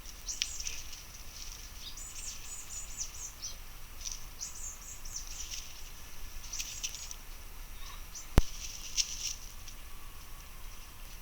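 Small woodland birds chirping in short, high twittering bursts, one after another. A single sharp click about eight seconds in.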